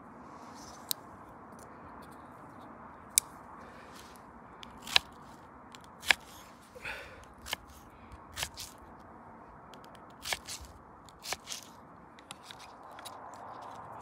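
Small folding knife slicing through an onion and knocking down onto a wooden cutting board: a dozen or so sharp, irregularly spaced knocks with brief crunching between them, over a faint steady hiss.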